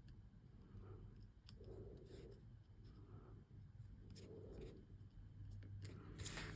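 Near silence, with faint rustles and a few light ticks of hands handling paper craft materials on a table.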